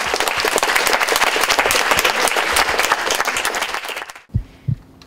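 Audience applause, a dense patter of many hands clapping, which cuts off suddenly about four seconds in. A few soft, low thumps follow near the end.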